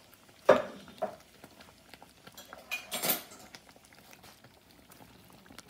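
Metal utensil knocking and scraping against a metal saucepan: one sharp knock about half a second in, a lighter one just after, and a short scrape near the middle.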